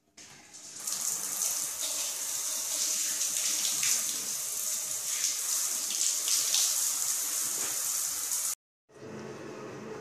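Water running hard from a bath mixer tap turned on by hand, a steady hissing rush that starts about a second in and cuts off suddenly near the end.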